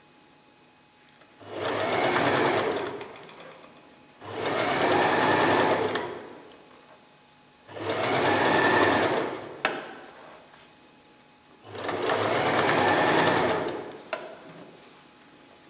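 Domestic electric sewing machine stitching piping into a jacket seam in four short runs of about two seconds each, with pauses between as the fabric is turned and guided. A sharp click sounds near the end of the third run and again just after the fourth.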